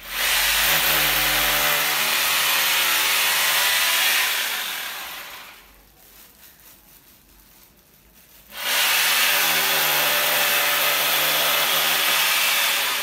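Corded electric drill boring into the wall in two long runs, the first fading out about five seconds in, the second starting again about three seconds later. These are holes for mounting a split air conditioner's indoor unit.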